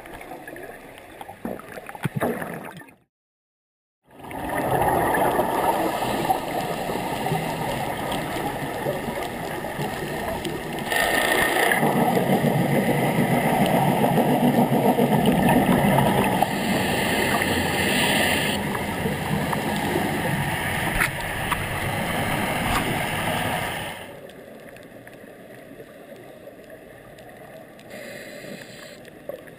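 Muffled underwater bubbling and rushing water noise picked up through a dive camera's housing. It cuts out for about a second near the start, then runs loud for about twenty seconds before dropping back to a quieter hiss.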